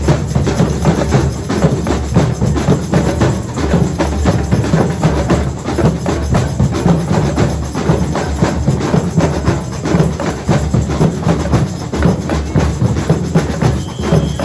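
Samba music with a busy, driving drum and percussion beat.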